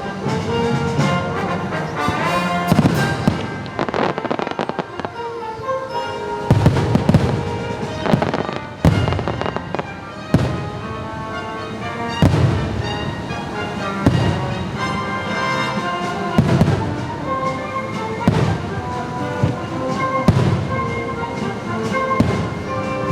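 Fireworks shells bursting in a string of sudden bangs, about one every couple of seconds, over loud orchestral show music.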